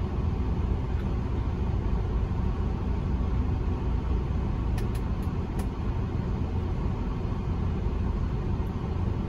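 Semi-truck diesel engine idling, heard from inside the cab as a steady low rumble, with a few faint ticks about halfway through.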